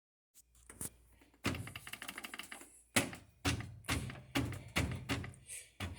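A series of irregular sharp clicks and knocks over a steady low hum.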